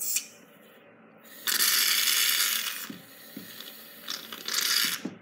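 Aerosol shaving cream can spraying foam from its nozzle in bursts of sputtering hiss: a short spurt at the start, a long one about a second and a half in, and another near the end.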